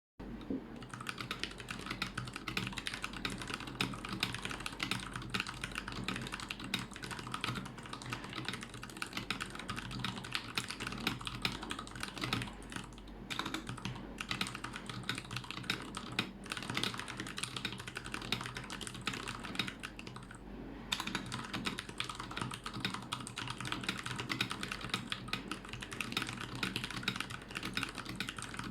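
Keychron K6 mechanical keyboard with a plastic case and Zealios 67g tactile switches lubed with Krytox 205g0, typed on fast and continuously: a dense stream of key clacks with short lulls about 13 and 21 seconds in.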